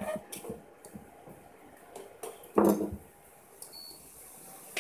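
A spatula clicking and scraping in a plastic mixing bowl of batter, with a louder clatter about halfway through. Near the end comes a single short high electronic beep.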